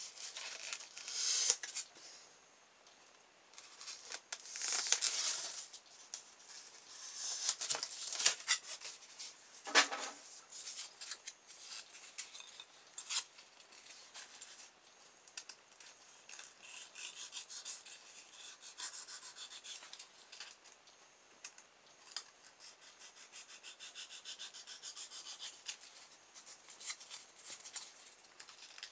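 A craft knife cutting through a polystyrene foam pizza tray: a series of scratchy scraping strokes, louder in the first ten seconds and lighter after that.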